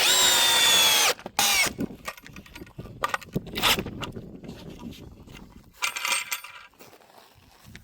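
Power drill driving screws into a wooden post: a run of about a second whose pitch sags as it bogs down under load, then a few short bursts, the last a buzzing one near the end.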